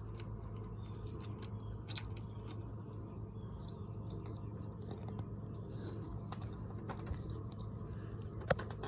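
Faint small metal clicks and scraping as a cotter pin is worked through the hole in a riding mower's wheel axle, with a sharper click near the end, over a steady low hum.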